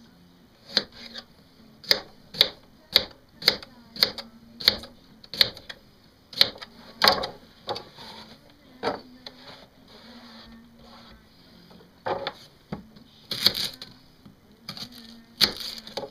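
Kitchen knife chopping onto a cutting board: sharp knocks about two a second, then a few scattered knocks in the second half.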